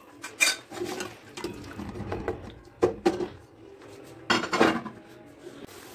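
Perforated steel skimmer scraping and clinking against a metal cooking pot as tomato masala is stirred while it fries, a few separate strokes with the loudest about three and four and a half seconds in.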